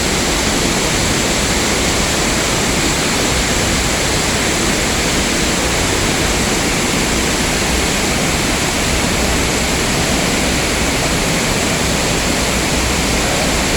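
Waterfall rushing with a loud, steady, even roar.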